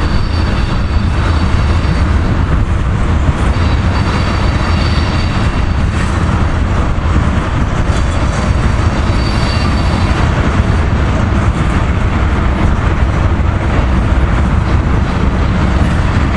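Freight train of ethanol tank cars rolling past, a steady rumble of steel wheels on rail. A faint high wheel squeal comes in a few seconds in and again near the middle.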